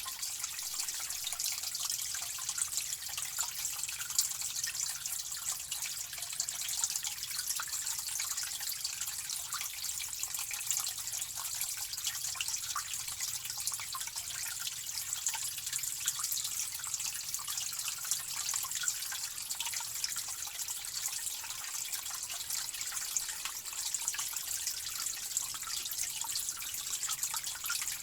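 Water running and splashing steadily, like a tap into a sink, with countless fine drips and spatters over a bright, even hiss that does not change.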